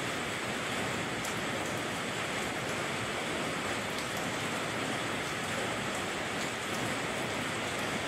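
Rain falling steadily, an even hiss with a few faint ticks of drops.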